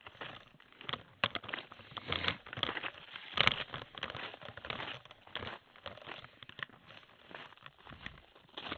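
Irregular rustling and crackling handling noise from a hand-held phone being carried while its holder walks, with a louder crack about three and a half seconds in.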